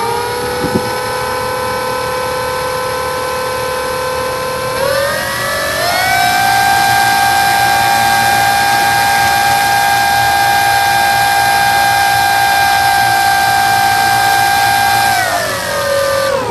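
Electric RC plane's E-flite Power 25 brushless motor and propeller on a static ground run, spinning up and holding a steady whine. About five seconds in it steps up to a higher pitch, then spools down near the end.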